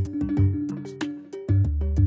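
Intro music with a steady percussive beat over pitched notes; a sustained low bass comes in about three-quarters of the way through.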